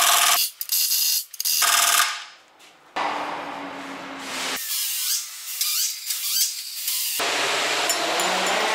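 Pneumatic ratchet running in two short bursts, driving bolts on a ZF 16S 1820 truck gearbox housing, followed after a brief pause by several seconds of steady mechanical noise with hiss.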